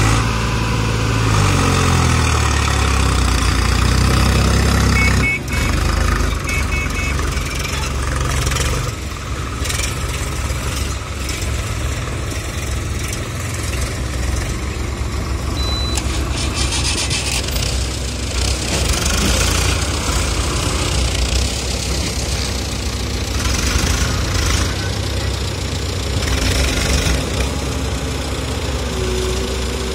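Sonalika DI 47 RX tractor's diesel engine working hard, its pitch rising and falling, as it pulls a trolley loaded with mud. After about five seconds, diesel engines of tractors and a tracked excavator run steadily together.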